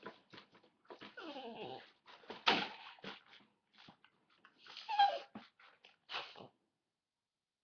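A dog growling and whimpering, with a falling whine and many short sharp clicks, then going silent about two-thirds of the way through.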